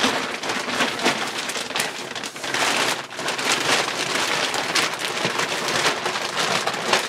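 Thin plastic sheeting of a Czechoslovak emergency NBC poncho crinkling and rustling in a dense crackle as it is shaken out and pulled over the head.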